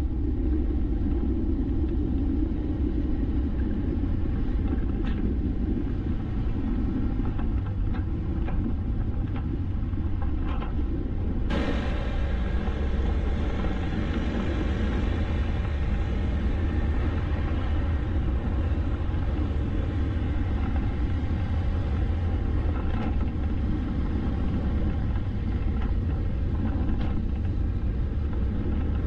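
Steady low rumble of a vehicle driving along a road: road and wind noise. About a third of the way in, a brighter hiss suddenly joins it.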